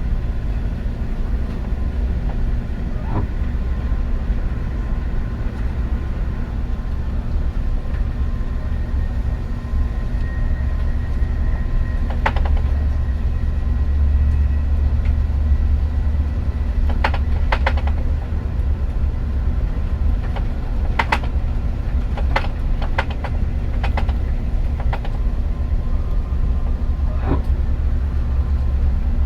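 Moving train running on its rails: a steady low rumble with faint steady whining tones and scattered sharp clicks and knocks, most of them in the second half.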